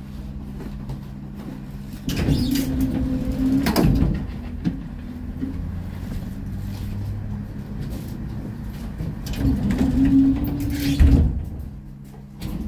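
Interior running sound of a 1981 LHB GT6 tram. A quiet steady hum gives way about two seconds in to louder running noise, with a drawn-out whine twice and scattered knocks and rattles, including a sharp knock near the end before it quietens.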